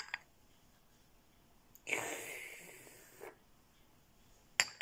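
A noisy slurping sip of tea from a porcelain cup, lasting about a second and a half and fading out. The cup clinks against its saucer once at the start and again in a few quick clicks near the end.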